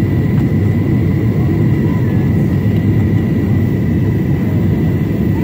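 Steady cabin noise of a Boeing 767-400ER on final approach, heard from a window seat by the wing: a deep, even rumble of the twin turbofan engines and the airflow, with a thin steady whine above it.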